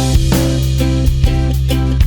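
Upbeat background music: strummed guitar chords in a quick, even rhythm over a steady bass line and drums.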